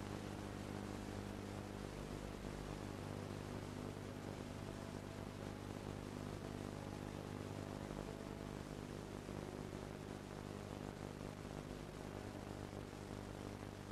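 A steady low electrical hum with hiss beneath it, the noise floor of an old taped TV broadcast, with no other sound.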